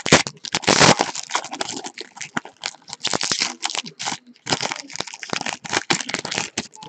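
Crinkling and tearing of a trading-card pack wrapper being handled and opened, in an irregular string of crackles.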